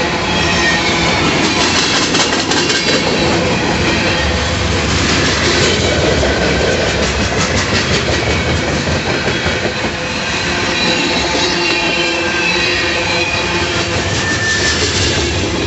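Freight cars rolling past close by: a steady loud rumble of steel wheels on rail with clickety-clack over the rail joints, and thin high wheel squeals that come and go.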